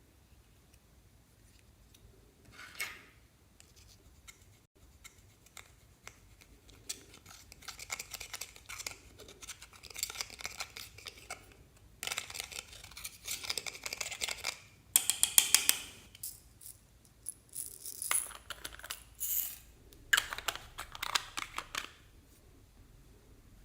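Clear slime squished and kneaded by hand, in irregular bursts of wet clicking and crackling.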